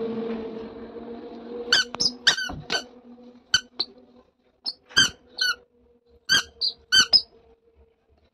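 Rubber squeaker giving short, high-pitched squeaks, about a dozen, mostly in quick pairs, the kind a toddler's squeaker shoes make with each press and release. A steady low hum runs under the first half.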